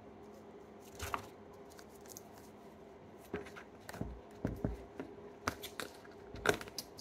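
Hands squeezing and poking a soft slime, giving scattered small squishes, clicks and pops, mostly from about three seconds in.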